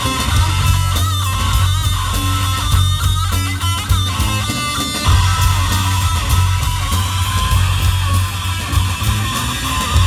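Live rock trio playing an instrumental passage: electric guitar lead over bass guitar and drum kit. In the first half the guitar plays bending, wavering notes; about five seconds in it settles on one long sustained note while the bass and drums carry on.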